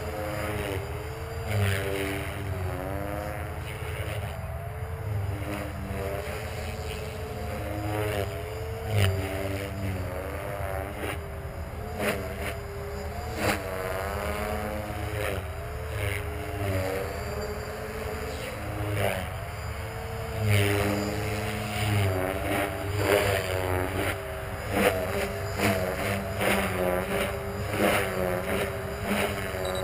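450-size electric RC helicopter with a flybarless rotor head flying overhead. Its motor and rotor whine keeps sliding up and down in pitch as it manoeuvres, over a steady low hum, with frequent short thumps.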